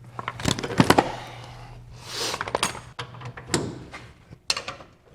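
Scattered metallic clicks and knocks of tools being handled while an air impact wrench is readied on a spring shackle bolt, with a short hiss about two seconds in.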